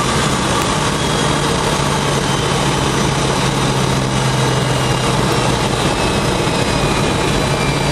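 Car engine running at a steady cruising speed, heard from inside the cabin with road and wind noise. The engine hum holds one pitch throughout and firms up slightly about a second in.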